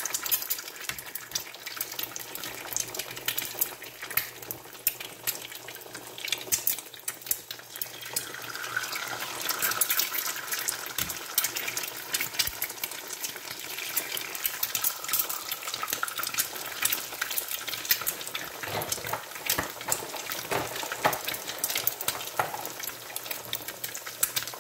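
Quail eggs frying in hot oil in a cast-iron skillet: continuous sizzling crowded with sharp crackles and pops of spattering oil.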